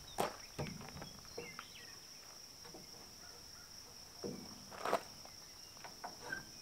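Steady high-pitched drone of insects in the grassland, with a few soft knocks and scuffs as a wooden side rail is handled against the steel flatbed, the loudest about five seconds in.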